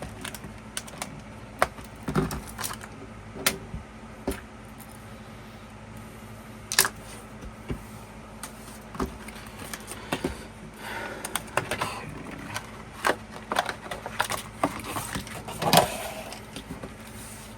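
Scattered light clicks, rustles and small metallic clinks from hands unpacking a small keychain photo viewer from an album, with a louder rustle near the end.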